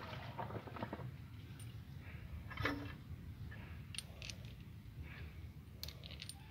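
Scattered light metallic clicks and clinks of bolts and tools being handled at an excavator's track chain guard, one clink about halfway through ringing briefly, with a steady low rumble underneath.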